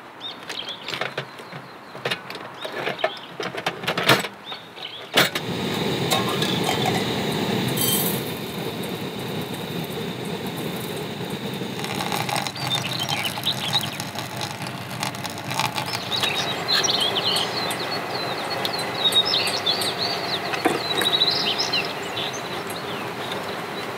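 Clicks and knocks of camp cookware being handled. About five seconds in a sharp click starts the steady rushing of a gas camp stove burner heating a stainless kettle. Birds chirp high over it in the second half.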